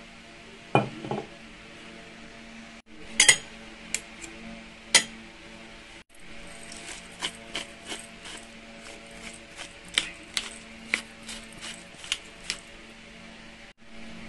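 A metal spoon clinking and tapping against a ceramic plate while stirring sauce into sliced roots. There are a few sharp clinks about a second in and around three to five seconds in, then a run of quicker, lighter taps.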